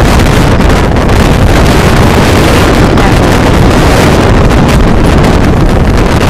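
Strong wind buffeting the phone's microphone: a loud, steady rumble and roar.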